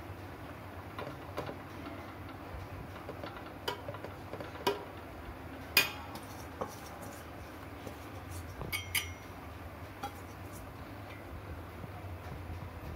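Steel serving spoon clinking and knocking against the sides of an aluminium pot while spreading cooked basmati rice, in irregular single clinks, the loudest about six seconds in and a quick cluster near nine seconds, over a steady low hum.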